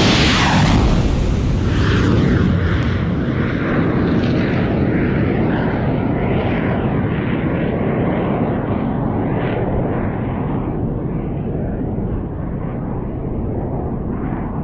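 Rocket-assisted launch of a UTAP-22 jet drone: a loud rocket roar at the start that fades into a low rumble as the aircraft climbs away, its hiss dying off over the seconds that follow.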